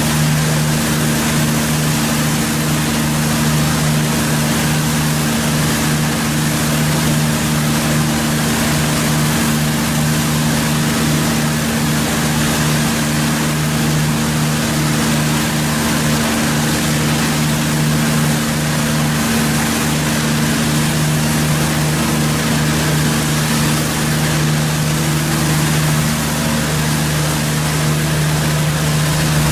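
Falch 300-bar high-pressure water jet hissing steadily as it blasts against a tunnel wall, over a steady low hum.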